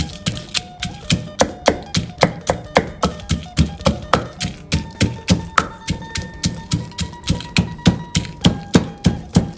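A pestle pounding papaya salad in a mortar: steady, even knocks, about three a second, with background music.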